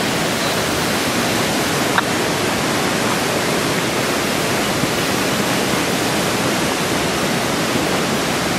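Floodwater from an overflowing creek rushing in a steady, even roar of water, with a small click about two seconds in.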